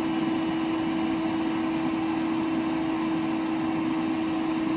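Milwaukee M12 1.6-gallon wet/dry vacuum running steadily: a rush of air with a constant motor hum. It is more than 20 minutes into a run on one 9 Ah battery, which is nearly drained.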